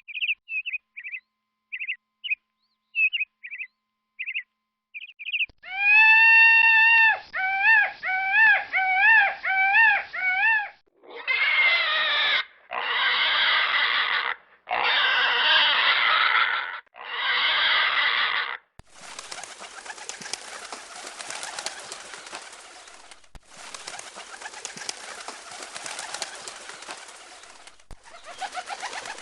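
A few seconds of short, repeated high bird chirps, then a domestic pig squealing loudly in long wavering squeals, four of them near the middle. After that, pigeons take flight with a steady flutter of wingbeats and clapping wings.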